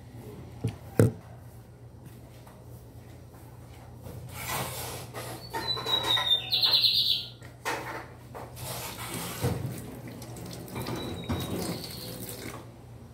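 Water running from a kitchen tap into a sink in spells, with a sharp knock about a second in and a brief high squeak in the middle.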